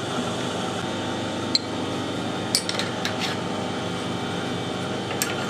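A few light metallic clicks and clinks as a metal workpiece is fitted into a lathe's collet chuck, over a steady machine hum.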